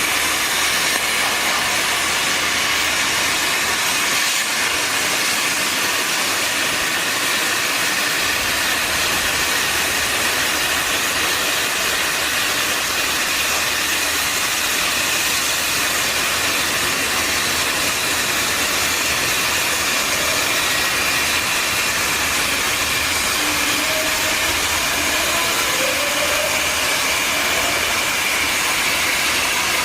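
Plasma cutting torch of a portable CNC plasma cutting machine giving a loud, steady hiss as it cuts metal.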